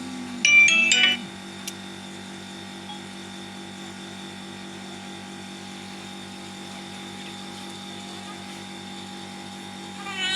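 A steady mechanical hum with an even, regular pulse, as from a small electric motor. About half a second in, it is broken by a brief, loud, high-pitched squeak.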